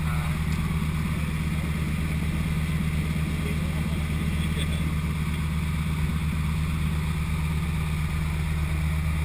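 Single-engine floatplane's piston engine and propeller running steadily at low power while taxiing on the water, a constant deep drone, with water rushing past the floats, heard from inside the cabin.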